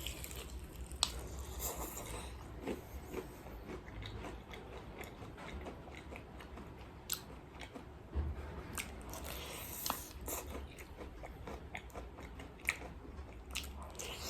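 Close-up chewing and biting of crunchy fried chicken, the crisp coating crackling in scattered bursts with wet chewing between.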